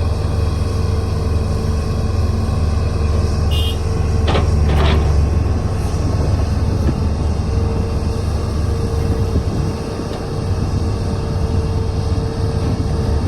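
Heavy diesel machine engine running steadily with a deep rumble, with two short metallic knocks a little over four seconds in.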